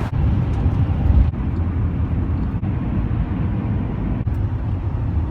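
Steady low rumble of a Chevy Express cargo van driving, heard from inside the cab.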